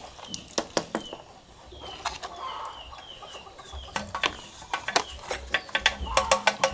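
Poultry calling with short, falling peeps, among sharp knocks and taps that come quickly near the end. A steady low hum joins about four seconds in.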